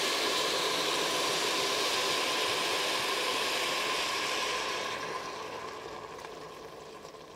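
White wine poured into the hot Instant Pot over sautéing onion, celery, leek and garlic, hissing and sizzling loudly as it boils off to deglaze the pot. The hiss dies down over the last two or three seconds.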